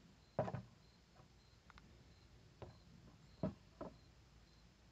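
Handling noise: a few light knocks and clicks as a Keystone Cricket rifle is set down on a wooden picnic table and an aluminium tripod shooting rest is picked up and adjusted. A double knock about half a second in is the loudest; single taps follow at irregular intervals.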